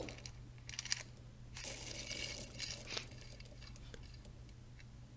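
Plastic scoop rattling and scraping through dry dog kibble in a plastic container: faint scattered clicks of pellets with a short rustle about two seconds in.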